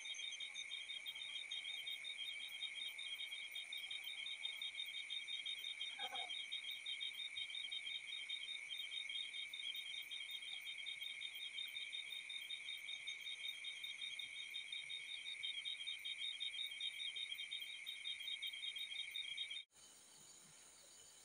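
Crickets trilling steadily in a fast, even pulsing, cutting off abruptly near the end.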